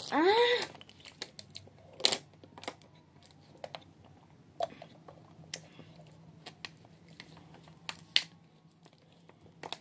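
A short vocal cry that rises and falls in pitch, then scattered crisp crunches and clicks of spicy chips being chewed.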